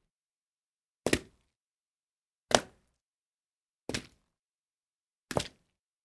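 Foley water splashes: four short, separate splashes about one and a half seconds apart, each dying away quickly.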